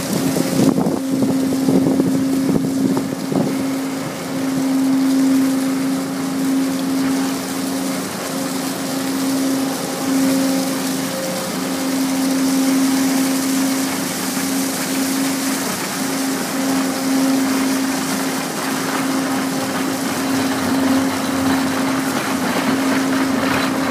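A steady machine hum holding one pitch, over a broad rush of moving air, while dry leaves rustle and skitter across stone paving.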